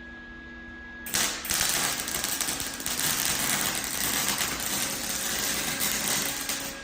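Welding arc crackling in one continuous bead of about five and a half seconds, starting abruptly about a second in and stopping near the end.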